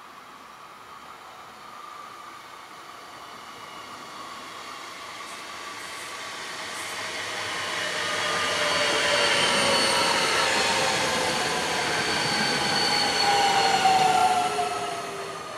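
A DB Regio class 440 electric multiple unit approaching and passing close by: wheel and rail noise builds steadily, with several whining tones that slide down in pitch as it goes past. It is loudest just before the end, then fades quickly as it moves away.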